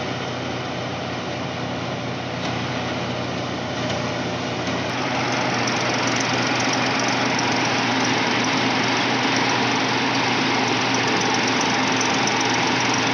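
Tractor-driven paddy thresher running steadily under load, the tractor engine's hum under the thresher's mechanical noise. About five seconds in, the sound turns louder and more hissing, close to the thresher's blower fan and grain outlet.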